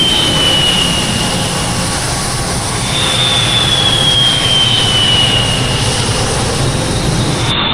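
Jet airliner engines running, a steady loud rush with a high whine that slides down in pitch over a couple of seconds, twice.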